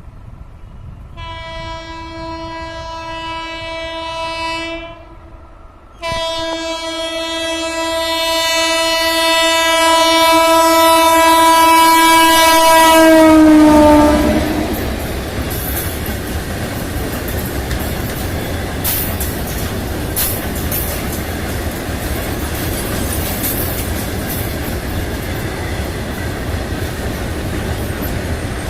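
WAG-7 electric locomotive's horn sounding twice: a blast of about four seconds, then a longer one that grows louder and drops in pitch at its end as the locomotive passes. After that comes the steady rumble and clatter of tank wagons rolling past, with wheel clicks over the rail joints.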